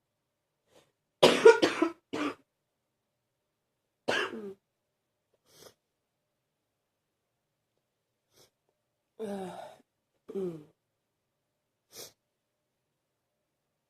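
A person's deep cough that keeps coming back: a quick run of several coughs about a second in, the loudest, then shorter single coughs a few seconds apart.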